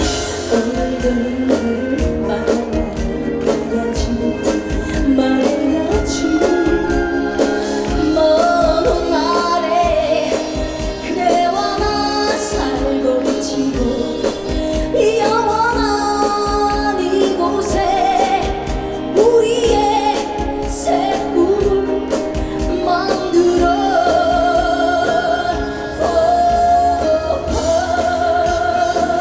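Live trot song: a woman singing with wide vibrato over backing music with a steady drum beat.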